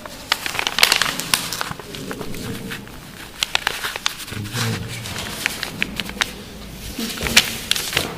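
Rustling and crinkling of fabric and a crumpled red sheet being handled and stitched by several hands, with scattered sharp clicks and taps.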